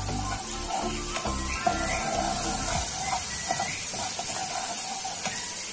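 Ginger-garlic paste and chopped green chillies sizzling in hot oil in a non-stick kadhai while a steel spoon stirs them, a steady high hiss. Background music plays under it.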